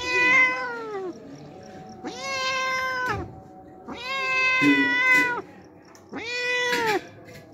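Tabby-and-white stray cat meowing loudly four times, each meow a drawn-out call that drops in pitch at the end: a hungry cat asking for food.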